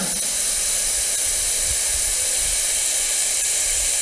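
Steady, high hiss of gas blowing out through the Newman-1 ethanol-LOX rocket engine and its nozzle at the end of a short test firing, with the propellant valves still open.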